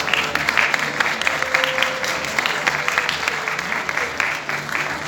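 Audience applauding with dense, steady clapping over background music.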